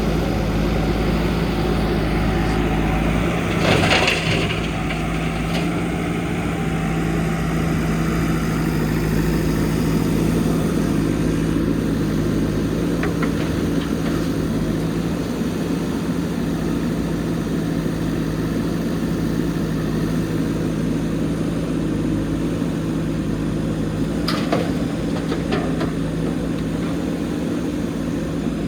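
JCB backhoe loader's diesel engine running steadily at work, with a short sharp knock about four seconds in and another near the end.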